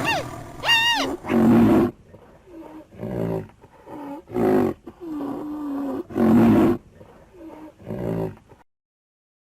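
A big cat roaring and growling in a series of about six separate calls, the first with a rising and falling pitch; the sound stops abruptly near the end.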